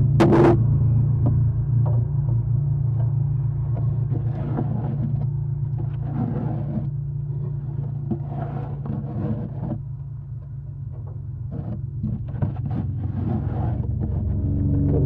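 Steady low hum with scattered scraping and rustling inside a wooden barn owl nest box as it is handled and cleaned out, with a few sharp clicks at the very start.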